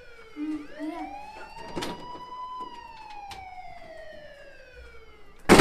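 Police siren wailing, its pitch sliding slowly up and down in long sweeps. There is a click about two seconds in and a sudden loud bang near the end.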